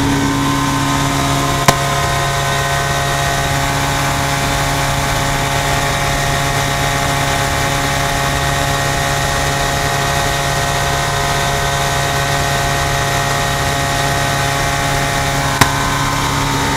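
Rotax engine and propeller of an Avid Flyer light aircraft running steadily in slow flight, a continuous drone heard from inside the cockpit. Two sharp clicks stand out, one near the start and one near the end.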